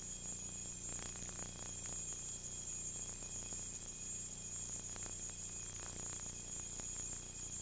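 Steady tape hiss from a second-generation VHS dub, with a low electrical hum and a high-pitched whine running under it, and a few faint crackles now and then.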